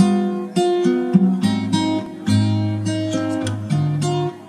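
Intro music: a plucked-string tune with chords struck in a steady rhythm, acoustic guitar in character.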